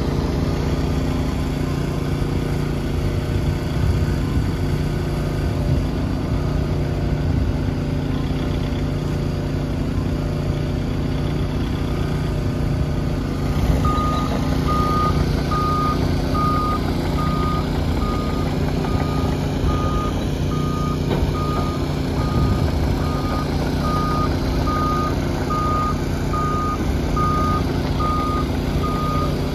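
Volvo EC60E compact excavator's diesel engine running steadily. From about halfway through, its travel alarm beeps with one high tone about once a second as the machine tracks.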